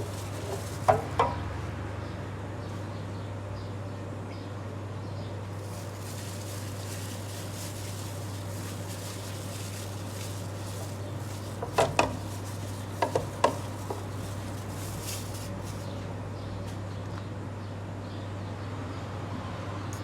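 A steady low hum with a few short clinks, two about a second in and a cluster of four around twelve to thirteen seconds in.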